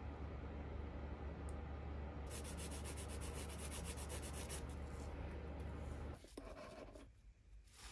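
Rapid rubbing and scratching strokes, densest for a couple of seconds in the middle, over a steady low hum that cuts off about six seconds in.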